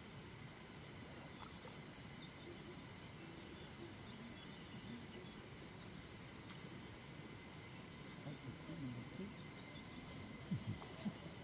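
Steady high-pitched drone of insects such as crickets or cicadas from riverside forest, over a faint outdoor background. A couple of short, low thumps come near the end.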